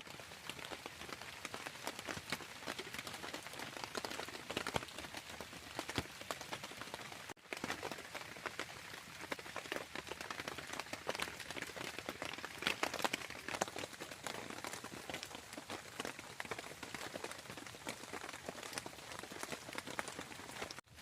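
Rain pattering: a steady hiss thick with many separate drop ticks, broken by two brief cuts, about seven seconds in and near the end.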